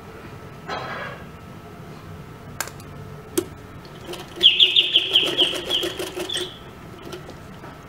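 Domestic sewing machine stitching through cotton lawn fabric: a brief rattle of stitches about a second in and a couple of sharp clicks, then a fast, even run of needle strokes lasting about two seconds before it stops.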